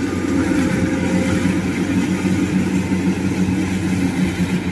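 Kubota DC-95 rice combine harvester's diesel engine running steadily while it works.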